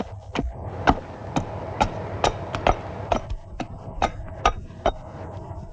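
Regular sharp knocks, about two a second, typical of hand-tool work on wood.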